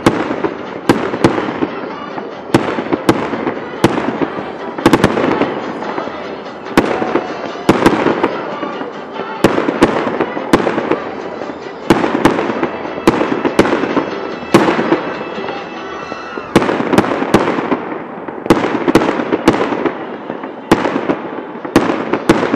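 A New Year fireworks salute: a steady run of sharp bangs from bursting shells at irregular intervals, roughly one or two a second, with crackle and hiss filling the gaps between them.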